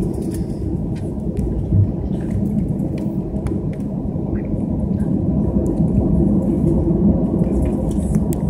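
Airbus A320 cabin noise while taxiing: a steady low rumble of the engines at taxi power, heard inside the cabin, growing a little louder over the last few seconds, with a few faint light clicks.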